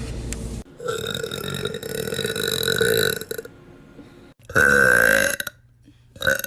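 A girl burping: one long drawn-out burp of about two and a half seconds, then a shorter, louder burp, and a brief one at the very end.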